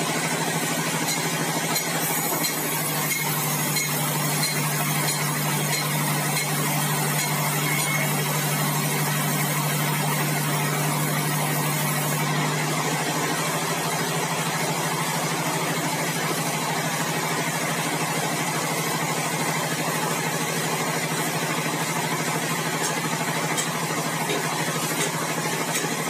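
Sawmill band saw machinery running steadily: a continuous loud mechanical hum with a low droning tone, the drive idling between cuts, which eases a little about halfway through.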